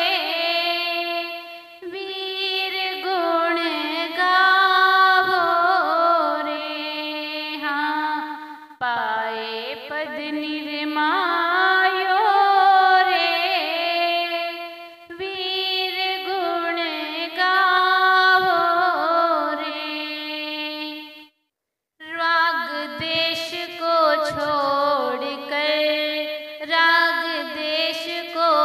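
Music from an Indian devotional song, most likely the interlude between verses: a melody over a steady drone. The music breaks off to silence for about half a second about three-quarters of the way through, then carries on.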